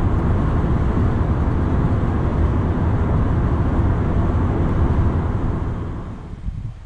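Steady in-cabin road noise of a Renault Kangoo van with a 1.5 dCi diesel at motorway speed: engine drone together with air rushing over the body and tyre noise, fading down near the end.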